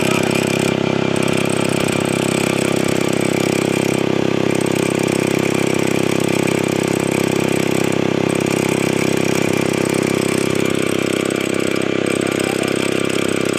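Lathe running steadily: a constant mechanical drone from its motor and gearing. The tone shifts slightly about eleven seconds in.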